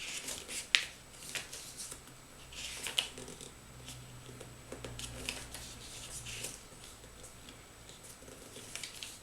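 Paper and packaging being handled: soft rustling with scattered light clicks and one sharp click about a second in. A faint low hum runs through the middle.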